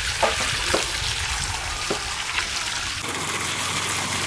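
Water from a garden hose pouring and splashing onto a heap of green olives in a woven bamboo basket as they are washed, with a few short sharp ticks in the splashing.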